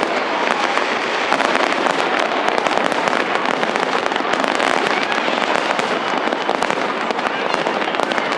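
Fireworks crackling densely and without a break: many sharp pops and snaps over a steady hiss, with no single big bang.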